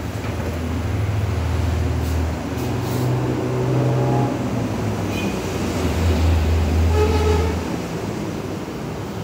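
Low motor or engine hum that shifts up and down in pitch a few times and drops away about three-quarters of the way through, with a fainter higher tone over it twice.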